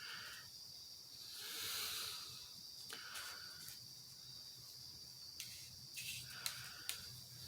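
Faint handling noise over steady hiss: a few small, sharp clicks in the second half as the head of a zoom flashlight is twisted in the hand.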